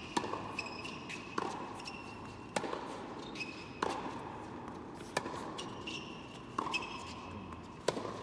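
Tennis rally on an indoor hard court: the ball is struck by rackets and bounces, with an impact about every second and a quarter, each ringing briefly in the large hall. Short high squeaks of tennis shoes on the court come between the hits.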